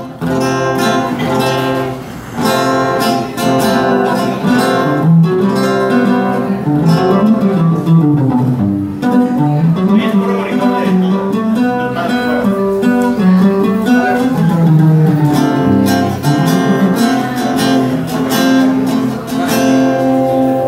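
A band plays an instrumental break between a song's verses: strummed acoustic guitar over a bass line that walks up and down, with no singing.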